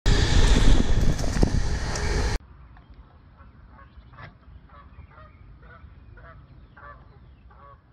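A loud rushing noise cuts off abruptly after about two seconds. Quieter, repeated honking calls of geese follow, about two a second.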